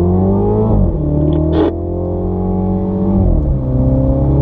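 Mini's engine under hard acceleration on track: the revs climb, fall sharply about a second in at an upshift, then hold and ease down before dropping again about three seconds in. A brief hiss comes just over a second and a half in.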